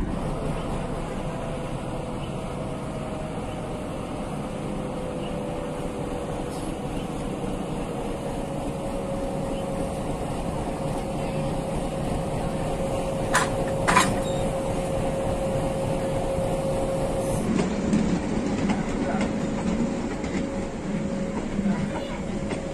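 YDM-4 meter-gauge diesel-electric locomotive running steadily, a constant whine over its engine rumble, with two sharp clicks about halfway through.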